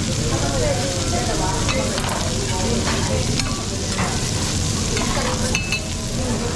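Food sizzling on a teppanyaki griddle, with a few sharp clicks.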